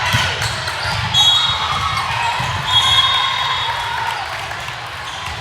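Gym sounds during a volleyball game: a ball thudding, and two short, high squeaks, about a second in and again near three seconds, most likely sneakers on the court. Voices chatter underneath.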